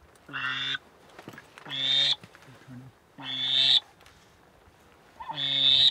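Goose-like honks, one about every second and a half, each swelling louder and then cutting off.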